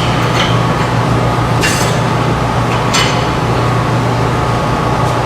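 A few light metallic clinks of tools and exhaust hardware being handled, about three in all, over a steady machine hum.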